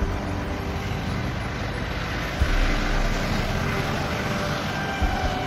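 Road traffic going by: a steady rumble of passing cars and trucks, with a few short low thumps about two and a half seconds apart.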